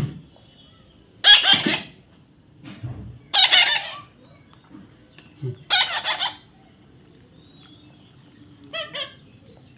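Baby parrot squawking: three loud, harsh calls a couple of seconds apart, then two short, quieter calls near the end.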